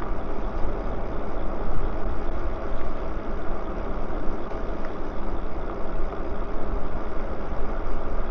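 Wind rumbling over a clip-on microphone with tyre noise on asphalt while riding an e-bike: a steady, low, rushing noise with no distinct events.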